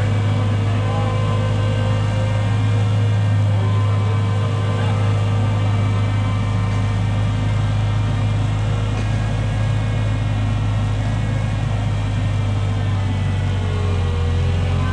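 Engine of a large heavy-capacity forklift running steadily, a deep even drone with fainter whining tones above it.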